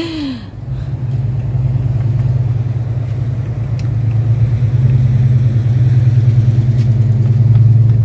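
A motor vehicle's engine running close by: a steady low rumble that grows louder over the last few seconds, with a few faint clicks over it.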